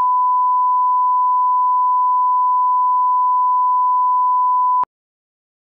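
1 kHz line-up test tone accompanying SMPTE colour bars: one steady pure tone that cuts off suddenly near the end.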